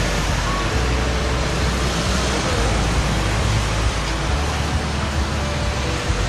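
Steady city street traffic noise: cars and motorbikes passing on a busy road below.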